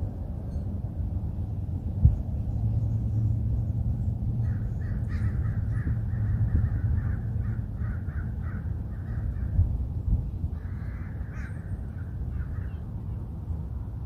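Crow cawing: a quick run of harsh caws from about four seconds in to nine, then a shorter run near eleven seconds. Underneath is a steady low rumble, with a sharp thump about two seconds in.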